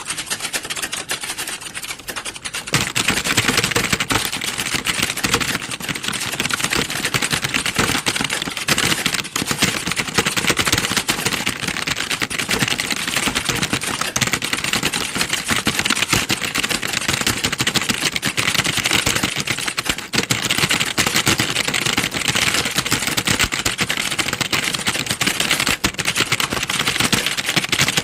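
Many computer keyboards being typed on at once, as in a hall full of typing-test candidates: a dense, continuous clatter of overlapping keystrokes that grows louder about two and a half seconds in.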